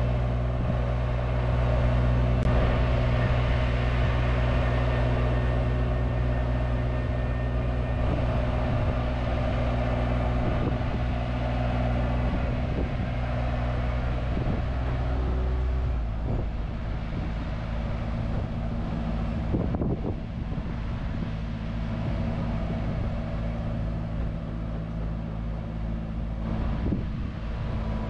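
Truck-mounted crane's engine running steadily to drive the boom's hydraulics during a lift, a constant low hum. The deepest part of the hum weakens about halfway through, and there are scattered light knocks.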